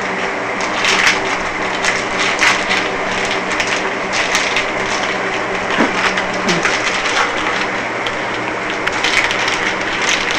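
Plastic food packaging crinkling and rustling as it is handled, in a run of irregular crackles, over a steady low hum.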